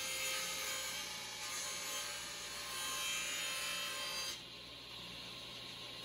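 Table saw cutting around a spiral-wound cardboard rocket body tube as the tube is rolled into the blade: a steady sawing hiss with a whine. About four seconds in the sound drops and the saw runs on more quietly, as the ring is cut through.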